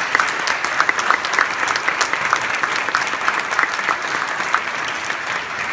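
Congregation applauding: a steady round of clapping from many hands, easing a little near the end.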